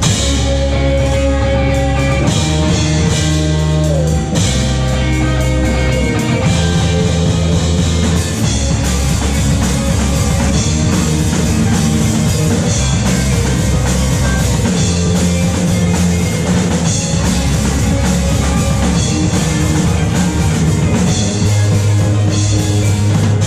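Loud rock music with electric guitar, bass and drum kit, played live.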